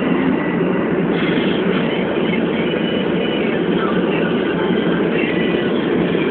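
Steady road and engine noise heard from inside a moving vehicle's cabin.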